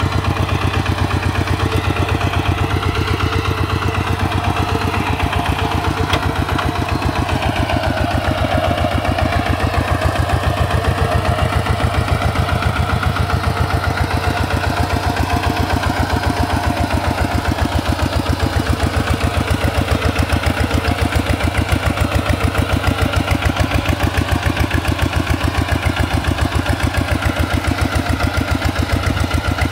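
Single-cylinder diesel engine of an RT 140 Plus hand tractor running steadily, with rapid, even firing pulses.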